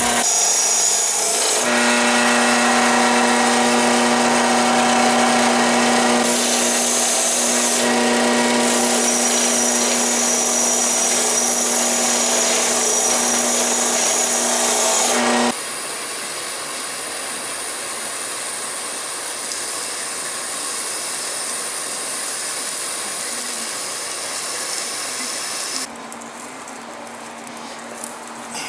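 Electric drill spinning a wire brush against a rusty steel bayonet, a steady motor whine with the scratch of the bristles on metal. About halfway through the whine gives way to a lower, scratchier sound, and it gets quieter near the end.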